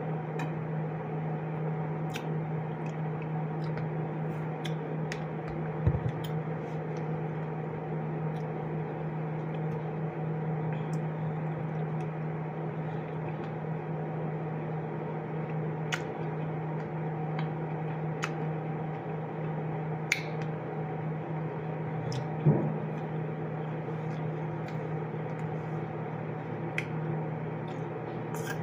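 A steady low appliance hum runs throughout, with scattered small clicks of a metal spoon against a plastic cup and eating sounds. Two dull thumps stand out, about six seconds in and about twenty-two seconds in.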